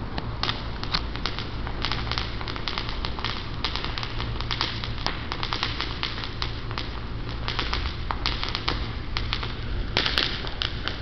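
Firework going off in the street, crackling: a fast, irregular run of small pops and snaps, thickest about ten seconds in, over a steady low hum.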